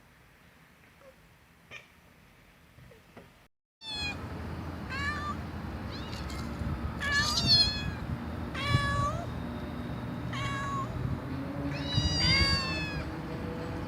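A cat meowing over and over, a short call every second or so, each dropping in pitch. The meowing starts after a few seconds of near quiet with faint clicks.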